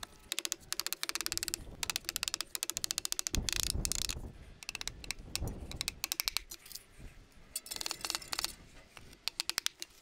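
Quick runs of light taps as a hammer drives roofing nails through a lead-sheet roof into a log, several runs of rapid strokes with short pauses between them.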